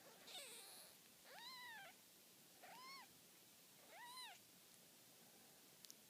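Four-day-old newborn kitten mewing quietly: three short high mews, each rising and then falling in pitch, about a second and a quarter apart, after a brief noisier cry at the start.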